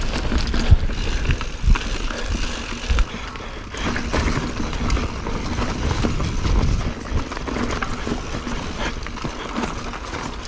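Silverback mountain bike ridden over rough trail: tyres rumbling over the dirt, with irregular knocks and rattles from the bike over bumps.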